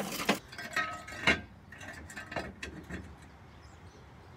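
Scattered metal clicks and knocks from a red hydraulic trolley floor jack being handled and set in place, the loudest knock about a second in.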